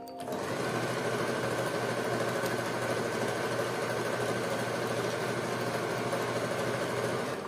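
Usha Janome electric sewing machine running at a steady speed while stitching fabric. It starts just after the beginning and stops near the end.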